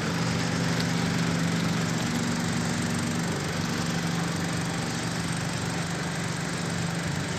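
Hydraulic excavator's diesel engine running steadily under load, a constant low hum over a broad rushing noise; one part of the engine note drops away about three seconds in.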